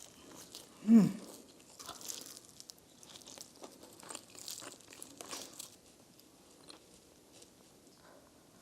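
A person chewing and crunching on a chicken wing close to the microphone, with wet bites and crackles that thin out in the last couple of seconds. A short loud hum comes about a second in.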